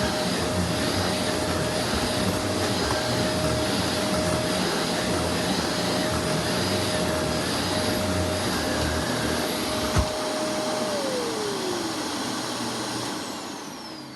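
Two Shark Lift-Away upright vacuum cleaners running together, a steady whir with a high whine. About ten seconds in a switch clicks, and the motors wind down with their pitch falling, fading out near the end.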